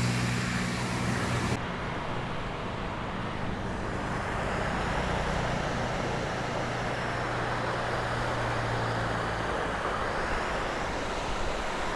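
A low vehicle engine hum for the first second and a half, then the steady rushing of a stream pouring down a rocky channel. A faint low engine hum runs under the water and stops about nine and a half seconds in.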